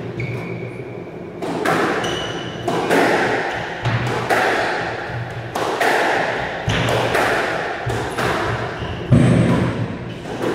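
A squash rally: the ball smacks off rackets and the court walls in a steady run of hits, about one a second, each echoing in the enclosed court.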